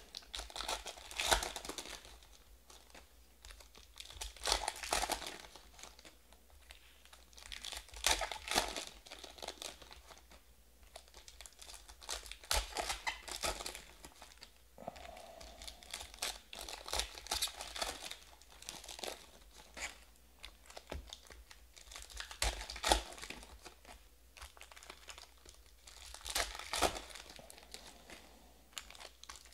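Wrappers of Panini Prizm trading-card packs crinkling and tearing as the packs are ripped open and handled, in bursts every few seconds.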